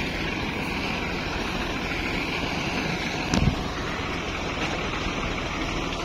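Steady running noise of the wheat-cutting machine, with a low rumble under a hiss. A brief thump comes about three and a half seconds in.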